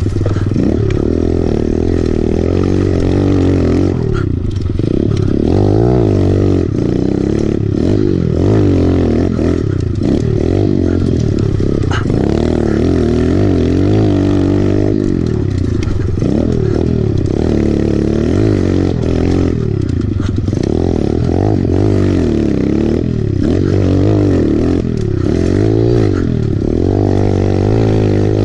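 Kawasaki pit bike's small four-stroke single-cylinder engine, ridden on a dirt track, revving up and easing off again and again as the rider goes round the turns.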